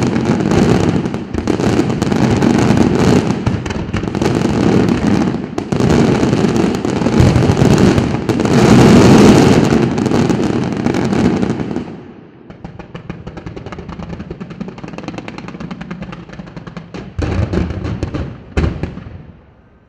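Fireworks display: a dense run of aerial shell bursts, with rapid overlapping bangs for about twelve seconds. It then drops to a quieter, rapid crackling, with a few louder bursts near the end.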